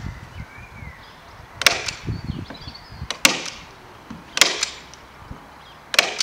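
Manual staple gun firing staples into the corner joint of pine canvas stretcher bars: four sharp snaps, a little over a second apart.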